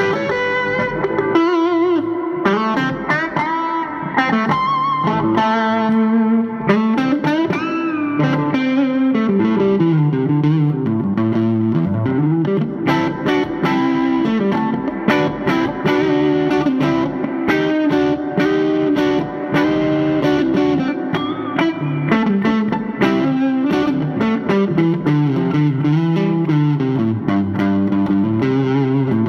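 Electric guitar played through an amplifier: a continuous melodic line with bent and sliding notes.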